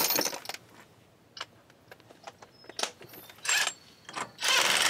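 A sharp metallic clatter at the start and a few light clinks as a socket and tools are handled. About four and a half seconds in, a cordless impact wrench starts hammering, running a suspension nut tight.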